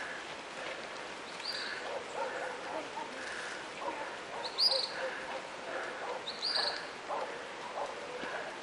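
A dog barking and yipping in short repeated calls, with three brief high chirps, about one and a half, four and a half and six and a half seconds in.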